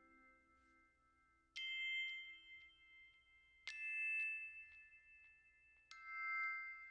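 Background music: three soft bell-like chime notes, about two seconds apart, each struck and ringing out.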